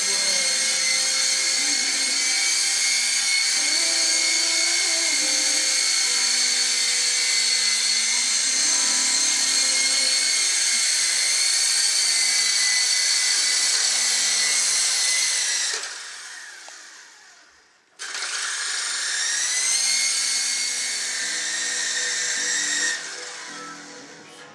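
SYMA S032 radio-controlled helicopter's electric motors and rotors running with a steady high-pitched whine, then winding down to a stop about sixteen seconds in. About two seconds later they start again, the whine rising as they spin up, and they cut off a little before the end.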